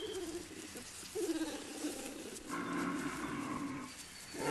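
Brown bear cubs crying in long, moaning calls, three in a row, the last the longest and strongest: distress cries of frightened cubs as another bear approaches.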